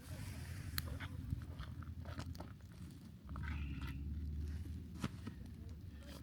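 Campfire crackling, with scattered sharp pops over a low, steady rumble.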